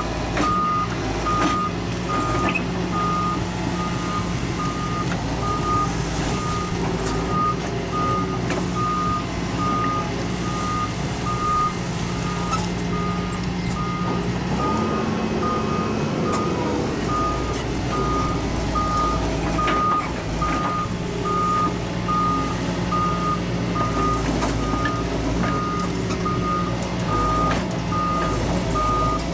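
Reversing alarm on a heavy machine beeping steadily, a bit more than once a second, over the machine's engine running; the engine note changes briefly about halfway through.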